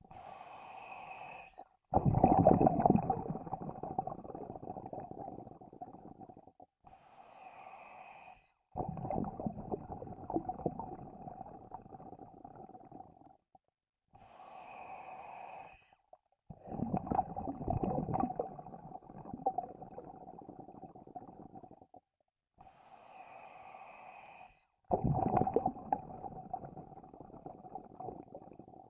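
Scuba diver breathing through a regulator: four slow breath cycles, each a short, quieter inhale through the demand valve followed by a longer, louder stream of rumbling, bubbling exhaled air.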